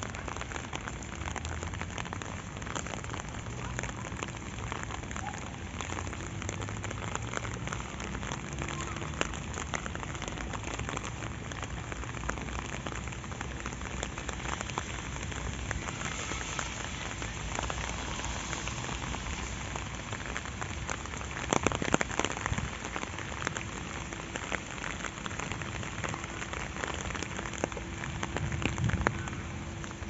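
Steady rain falling on a wet path and grass, an even hiss thick with the patter of individual drops. A short, louder noise breaks in about two-thirds of the way through.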